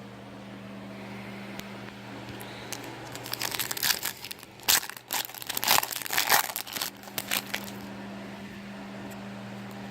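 Foil wrapper of a baseball card pack being torn open and crinkled in the hands, in a burst of crackling rustles for several seconds midway. A steady low hum runs underneath.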